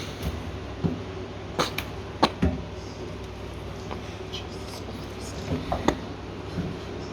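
Handling knocks and clicks at a Hoover 8 kg tumble dryer during loading, about nine short knocks in two clusters, over a steady low hum.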